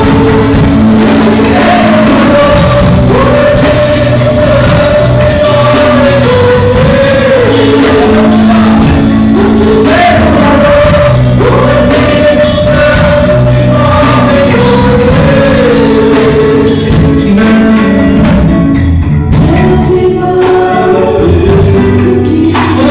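Live gospel worship song: a woman sings the lead in long, held notes over a band with electric bass and guitar.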